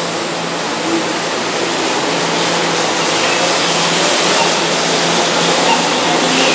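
Keihan 2200 series electric train pulling out of a station, its motors and wheels running in a steady noise that grows gradually louder as it picks up speed.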